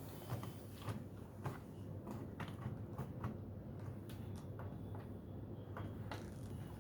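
Faint, scattered clicks and light taps from handling the door of a Haier front-load washing machine as it is opened.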